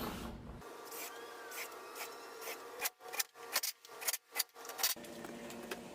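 A run of five or six short, sharp rubbing or rasping strokes about three seconds in, each cutting off abruptly, over a faint low background.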